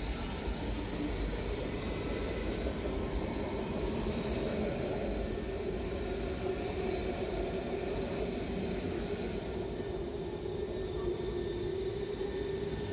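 A train running on rails: a steady rumble with a sustained tone over it, and two short hisses about four and nine seconds in.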